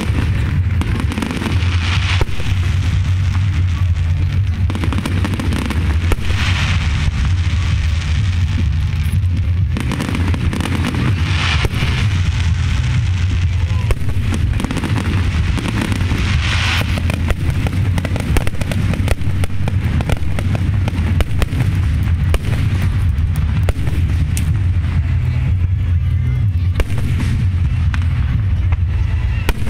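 Aerial firework shells bursting one after another throughout, a steady run of bangs and crackling over a constant low rumble.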